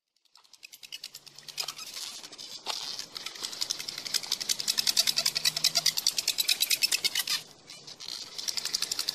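Wooden hand-drill spindle spun between the palms, grinding into a fireboard to make a coal for fire by friction. It gives a fast, even run of rasping strokes that grows louder over the first few seconds, breaks off briefly near the end, then starts again.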